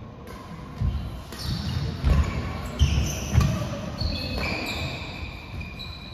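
Badminton doubles rally: a string of sharp hits and thumps as rackets strike the shuttlecock and players' feet land on the synthetic court mat, with shoes squeaking on the mat.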